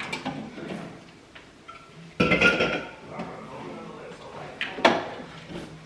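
Glass jars, bottles and food containers clinking and knocking as they are taken out of a fridge and set down, with a louder clatter about two seconds in and a sharp knock near the end.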